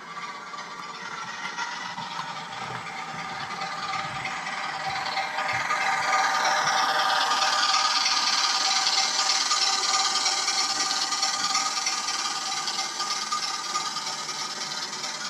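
OO gauge model diesel shunter and goods wagons running along the rails: an electric motor whine with wheels rattling over the track, growing louder as the train comes close past and then fading as it moves away.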